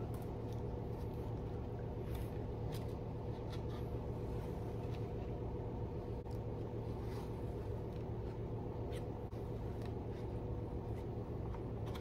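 Steady low room hum with faint, scattered ticks and rustles as the pages of a board book are handled and turned.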